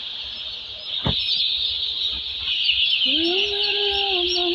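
Many day-old broiler chicks cheeping together in their crates: a dense, steady, high-pitched chorus. A single knock comes about a second in, and a long held pitched tone starts about three seconds in.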